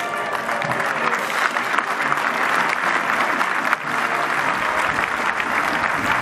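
A large crowd applauding steadily.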